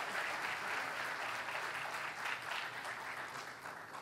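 Congregation applauding: many hands clapping in a steady patter that thins out and fades near the end.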